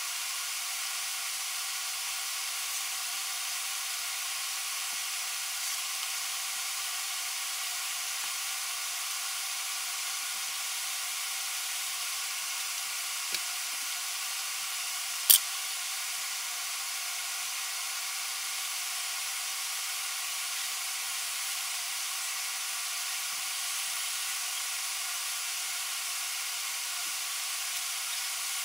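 Steady hiss, even and unchanging, with one sharp click about halfway through and a fainter one shortly before it.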